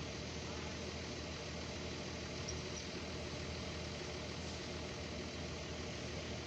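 An engine running steadily at a constant speed, typical of heavy machinery idling on a building site, with no change in pitch.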